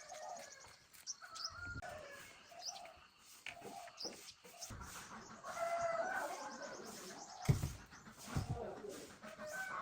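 Birds chirping in short, high calls, with a few dull low thumps, the loudest about seven and a half seconds in.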